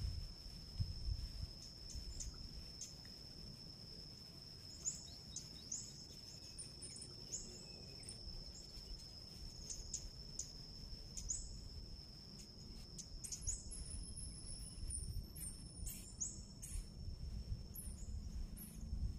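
Outdoor ambience: birds giving short, quick chirps, more of them in the second half, over a steady high-pitched insect drone, with low wind rumble on the microphone.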